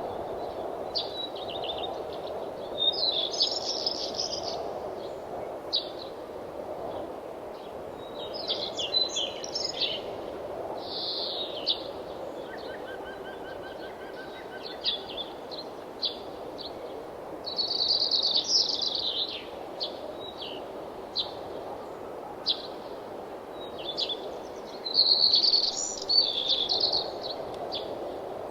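Songbirds singing, with bursts of high chirping phrases every few seconds and a fainter trill of short even notes partway through. Under them runs a steady low rushing hush.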